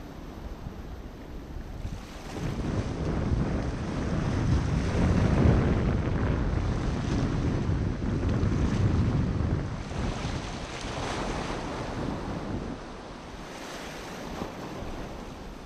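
Surf washing over a rocky reef edge, swelling from about two seconds in and easing off near the end, with wind buffeting the microphone.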